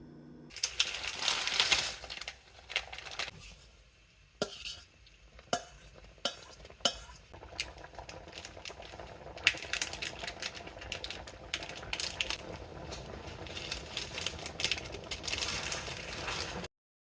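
Utensils clinking and scraping against a bowl while food is stirred: a noisy stretch at first, then several separate sharp clinks, then a long busy run of scraping and clinking that cuts off suddenly near the end.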